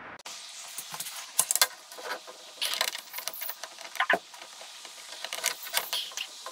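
Irregular light metallic clicks and rattles from hand tools and small sunroof hardware being handled during disassembly, with a single knock about four seconds in.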